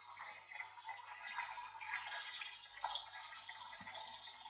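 Faint trickling and gurgling of coolant water as a small pump in a tub circulates it through a water-cooled spindle's hoses, with a couple of light knocks as the hoses are handled.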